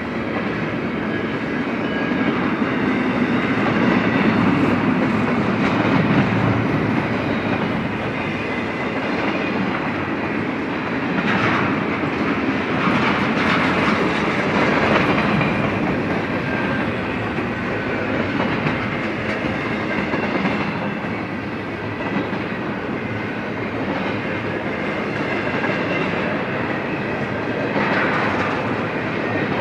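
A BNSF freight train of mostly empty intermodal well cars rolling past steadily, steel wheels running on the rails.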